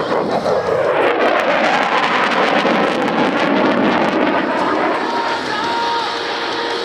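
Jet noise from a Dassault Rafale's twin turbofan engines as it flies its display: a loud, dense rush that builds about a second in and eases off slowly in the second half.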